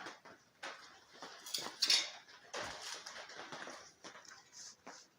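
Scattered light metallic clinks, knocks and scraping from metal parts and tools being handled, with a short harsher scrape about two seconds in.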